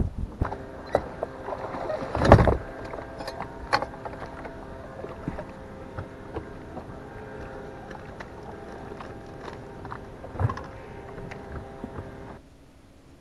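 A boat's motor running at a steady pitch, with a few sharp knocks on the boat, the loudest about two seconds in. The motor sound cuts off suddenly near the end.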